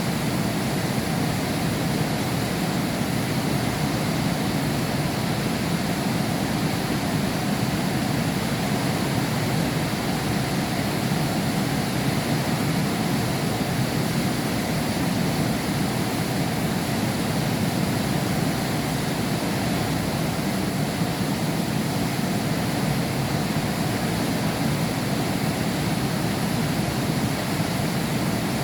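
Heavy rain falling steadily, heard from behind a glass window as an even, unbroken rushing with its weight low down.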